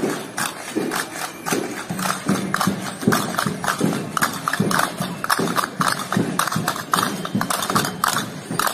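Handheld percussion struck by a group of marchers in a quick, even rhythm of about three or four strikes a second.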